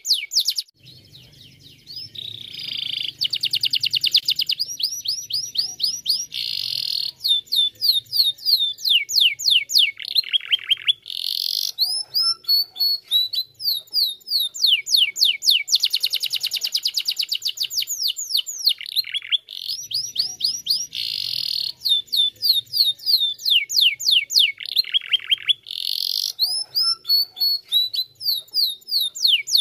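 Domestic canary singing a long, fast song: rapid runs of repeated high notes and rolling trills, one series after another, with a short lull about a second in.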